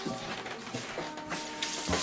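Soft background music with a few held notes, then a kitchen faucet starting to run into the sink near the end as a frying pan is rinsed.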